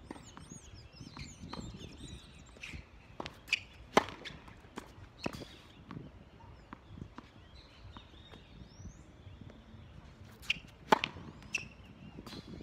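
Tennis serve practice on a hard court: a few light ball bounces, then the sharp crack of the racket striking the ball on the serve. This happens twice, about seven seconds apart, each crack followed by a fainter knock.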